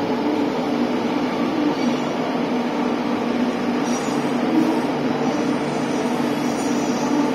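JR Kyushu 813 series electric train standing at a platform, with a steady hum from its onboard equipment.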